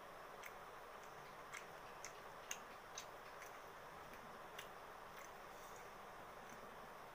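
Faint eating sounds: irregular sharp clicks, roughly one every half second to a second, over a steady low hiss, from eating rice and curry by hand off a steel plate.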